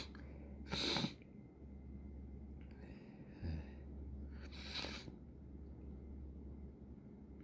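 Human sneezing fit: a sharp sneeze about a second in and a second sneeze near five seconds, with a quick breath drawn in between.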